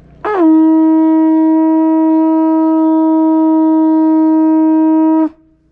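Hawaiian conch shell trumpet (pū) blown in one long, steady, loud note of about five seconds, with a brief bend in pitch as it starts and a sharp cut-off at the end.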